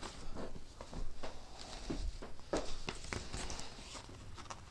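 Light, irregular rustles and taps of a man moving and handling sheets of paper.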